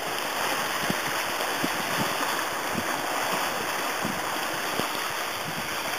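Sea water lapping and slapping against a kayak in a light chop, over a steady hiss of wind and water.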